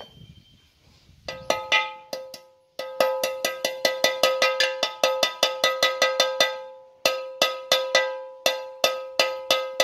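A steel rod used as a drift, struck over and over with a second metal bar to tap a small needle roller bearing into a motorcycle's clutch cover: sharp ringing metal-on-metal taps, about four a second, starting a little over a second in and breaking off twice briefly.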